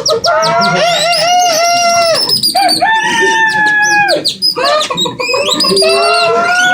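A man imitating bird calls with his voice: a run of loud, high, held calls, each wavering a little and dropping off at its end, with short breaks between them.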